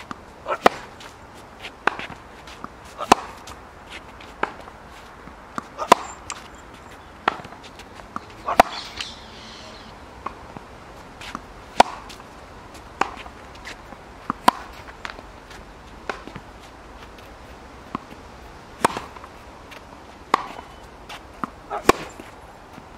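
Tennis rally: a ball struck back and forth by rackets with sharp pops, with bounces on the hard court in between, about one impact every second or so. The loudest hits are the near player's strokes.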